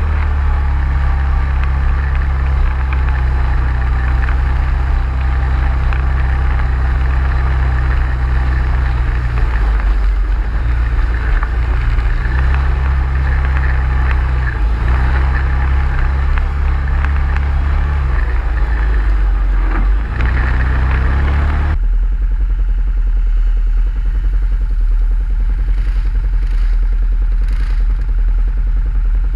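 ATV engine running steadily under way, with a strong low drone and some clatter. About 22 seconds in, the sound abruptly loses its higher part and continues as a lower, duller drone.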